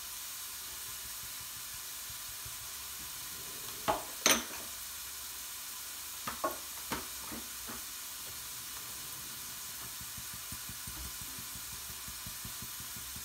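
Minced beef and carrots sizzling steadily in a frying pan. A few sharp clicks and knocks come about four seconds in, and a few more between six and eight seconds.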